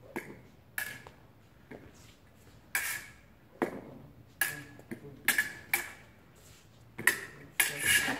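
Fencing blades clashing and tapping together: about a dozen sharp metallic clicks with a short ring, at irregular intervals, coming faster near the end.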